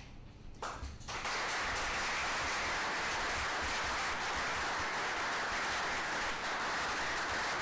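Audience and council members applauding; the clapping breaks out about a second in and keeps up steadily.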